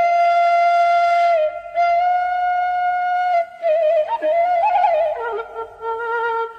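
Background music: a slow solo melody on a flute-like wind instrument, with long held notes that waver slightly, then a quicker run of notes settling lower in pitch.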